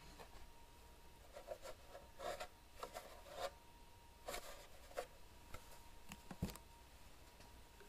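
Faint handling noises from a hard plastic chainsaw bar scabbard being lifted and laid down on a table: light rubbing and small knocks, with a soft thump a little after six seconds in as it is set down.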